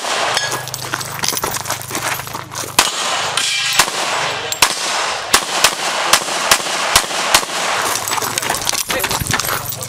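Semi-automatic pistol fired in a long run of sharp shots, often two in quick succession, with short irregular gaps between groups.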